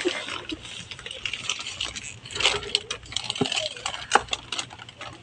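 Paper and bag handling: irregular rustling, crinkling and small clicks as bags are opened and handled, over the low steady hum of a fast ferry's cabin.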